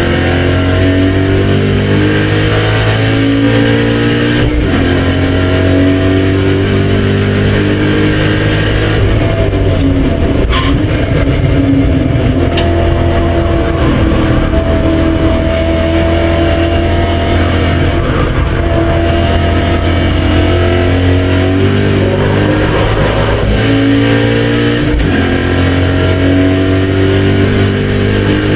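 BMW M5 E39's 4.9-litre V8 under load on a race track, its pitch climbing and dropping again and again as it is driven hard through the gears.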